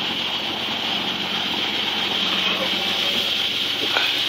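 BMW E36 engine idling steadily just after its first start on a newly installed cut-ring head gasket; the idle holds even and smooth.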